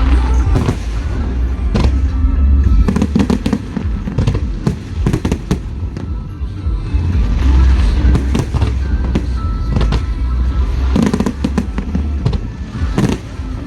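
Aerial fireworks bursting in quick succession: many sharp bangs and crackles over a deep, continuous rumble, with music playing underneath.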